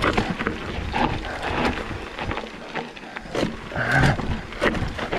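Mountain bike descending rough dirt singletrack: wind rushing over the handlebar-mounted mic under a stream of rattles and knocks from the bike jolting over bumps. A short, louder burst of sound comes about four seconds in.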